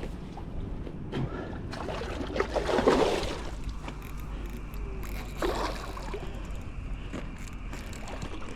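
Water splashing and sloshing in a couple of bursts, the larger about two to three seconds in and a shorter one past the middle, as a freshly caught cod is handled at the water.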